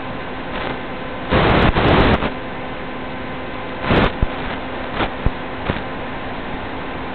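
Steady hiss of an analog FPV video link's audio channel with faint steady hum tones in it, broken by louder bursts of static about a second and a half in and around four seconds, with two short crackles after that.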